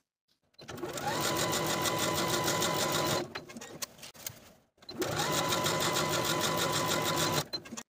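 Domestic electric sewing machine stitching through cotton-rayon chambray, understitching pocket seams. Two runs: each time the motor whines up to speed, holds a steady pitch with the rapid rattle of the needle for about two and a half seconds, then stops.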